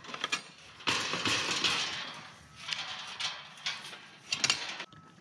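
Tubular steel mesh livestock gate swung open, a scraping rush about a second in as its bottom drags on the ground, which slopes up on the inside, then several sharp metal clanks and rattles, a cluster of them near the end.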